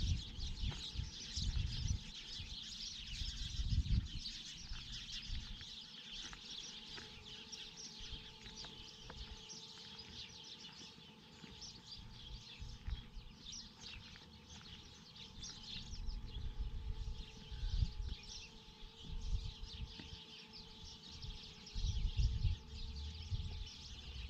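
Many small birds chirping and twittering continuously, with irregular low rumbles underneath.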